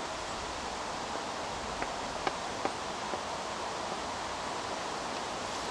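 Sidewalk chalk on a chalkboard as a word is written: a few light taps and scratches over a steady outdoor background hiss.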